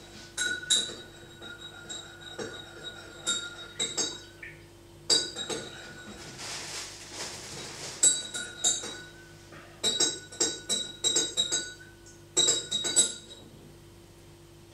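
Sharp metallic clicks and clinks, each with a brief ring, coming in irregular clusters with a quick run of them about ten seconds in, and a short rustle in the middle; made by handling the steel Seiko Sportura SNAE77 watch.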